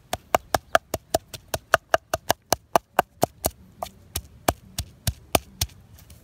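Wooden pestle pounding sliced lemongrass and garlic in a mortar: sharp, even knocks about five a second, slowing to sparser strikes after about three and a half seconds.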